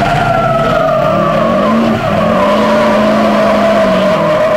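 Lifted Chevrolet pickup doing a burnout: rear tires spinning and squealing under a hard-revving engine. The squeal slowly drops in pitch and cuts off abruptly at the end.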